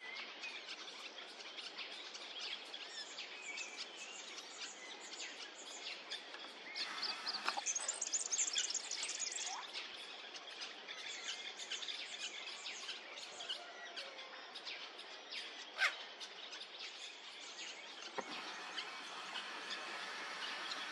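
Small birds chirping and twittering outdoors, busiest from about seven to nine and a half seconds in, with one sharp click a little before sixteen seconds.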